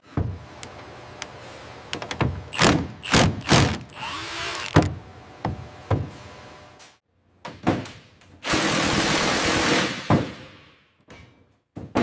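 Workshop tool handling: a string of separate thunks and clacks, like tools being knocked and set down on metal. A steady hiss runs for about a second and a half past the middle.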